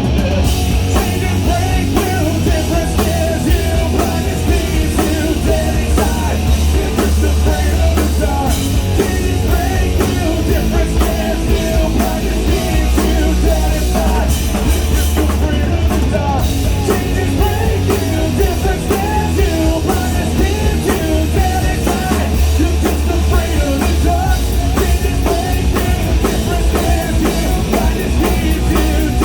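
Live rock band playing loud, with heavy bass and drums, recorded on a cellphone.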